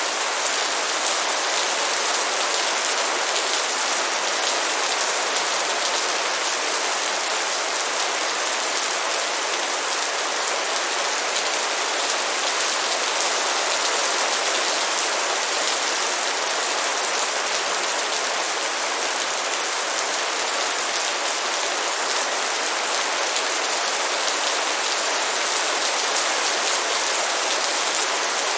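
Rain falling steadily: an even, unbroken hiss of many drops, with no thunder or pauses.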